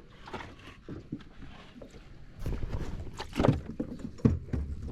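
Scattered knocks and rattles in a small aluminium boat, with some water and handling noise, while a hooked barramundi is being fought. The knocks are loudest around three and a half seconds in.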